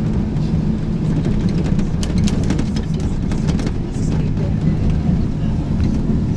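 Motor vehicle engine and road noise heard from inside the moving vehicle: a steady low drone with a few light clicks and rattles.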